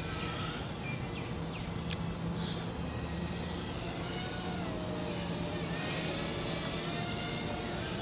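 Crickets chirping in a steady pulsing trill, about four chirps a second, over the faint wavering whine of a small quadcopter's motors as the throttle changes.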